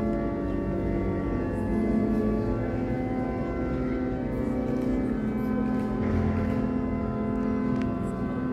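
Music of long held chords that change slowly, sounding inside a large domed church.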